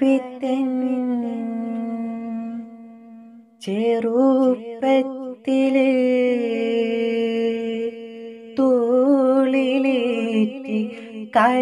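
A solo voice singing the slow, wordless opening of a Malayalam Islamic devotional song, with long held notes and ornamented melismatic turns. The phrases are separated by breaths, one about three seconds in and another past the middle.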